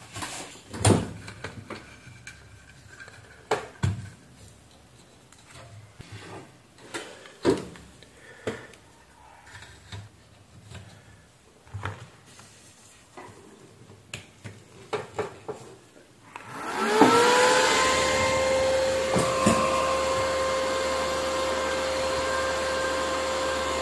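Small clicks and handling knocks of connectors and probe leads. Then, about 17 seconds in, the inverter welding machine's cooling fan starts up: its whine rises in pitch and then holds steady over a rush of air.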